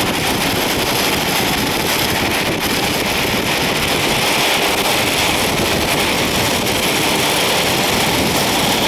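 Steady rolling noise of inline skate wheels on an asphalt road, mixed with wind on the microphone.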